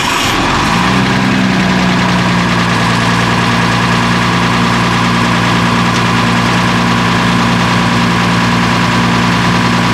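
30 kW generator's engine just after starting: it picks up speed over the first second or so, then settles into a steady idle.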